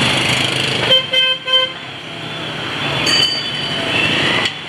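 Street traffic with motorbike engines running close by; about a second in, a vehicle horn beeps three quick times.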